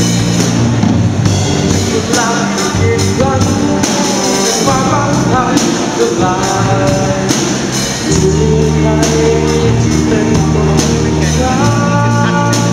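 Live rock band playing: a young male singer sings through a microphone and PA over amplified electric guitar and a steady beat.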